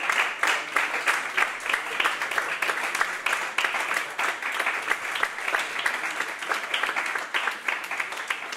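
Audience applauding, a steady dense clapping that holds at the same level throughout.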